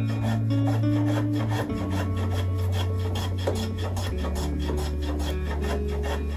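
Hand plane taking repeated short strokes across an oak block, a scraping, rasping sound of the blade shaving the wood. Background music with sustained low notes plays underneath.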